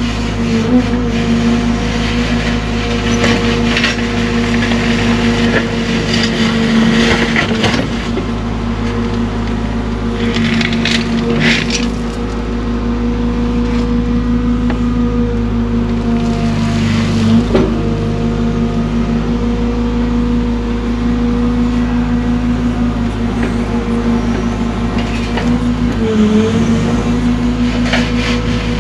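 Cat excavator engine running steadily under hydraulic load while digging. Its pitch dips briefly about four times as the work loads the engine, and there are a few short bursts of scraping and crunching from the bucket working soil and rock.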